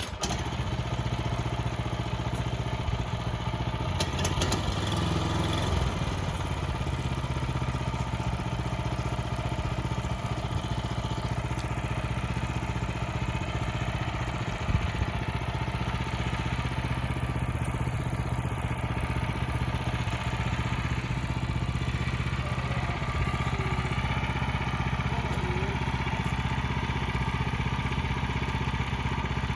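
Wood-Mizer LX25 portable band sawmill running steadily, its engine holding a constant speed, with a few brief clicks and clatters.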